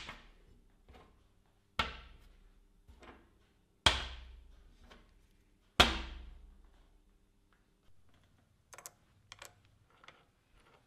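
Steel low-profile mill clamps set down one by one on a steel bench top: sharp metallic clunks about every two seconds, each ringing briefly, with lighter knocks between them. A few faint small clicks come near the end.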